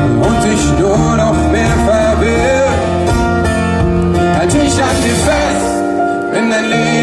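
A live band playing a pop-rock ballad, with acoustic guitars and singing. The deep bass drops out near the end.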